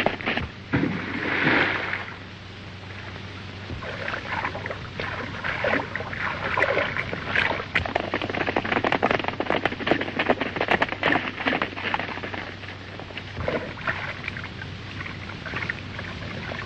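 Horses galloping: a rapid, irregular clatter of hoofbeats over a steady low hum.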